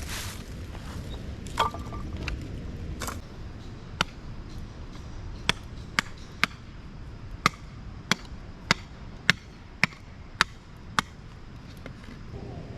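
Firewood being split with a nata, a Japanese hatchet: a string of sharp wooden knocks, about a dozen strikes roughly half a second to a second apart, starting about four seconds in.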